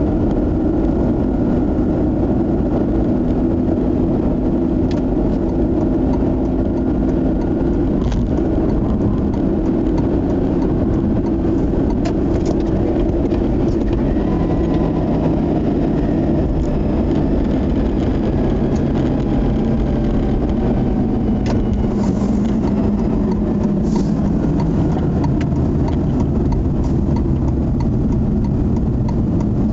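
Mazda RX-8's rotary engine and tyre rumble heard from inside the cabin at motorway speed. The engine note drops about halfway through as the car slows down an exit ramp into a service area.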